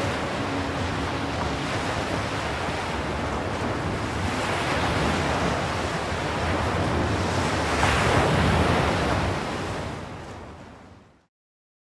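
A steady rushing wash of noise, like surf, swelling about four seconds in and again about eight seconds in, then fading out to silence near the end.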